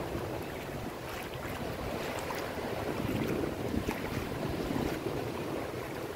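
Shallow surf washing over the sand, with wind buffeting the microphone.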